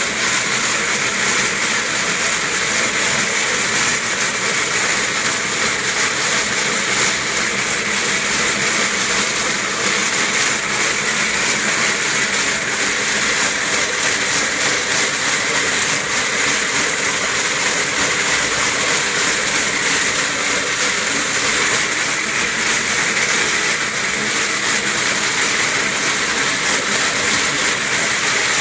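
Wooden slat mill turning steadily under a running dog: a continuous, even rattling rumble of the slats rolling, with no pauses.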